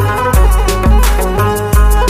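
Instrumental music with a heavy bass beat about twice a second under sustained melody notes and crisp high percussion.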